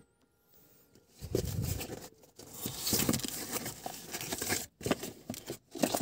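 A cardboard shipping box being torn open by hand: packing tape and cardboard ripping and rustling in fits and starts, beginning about a second in.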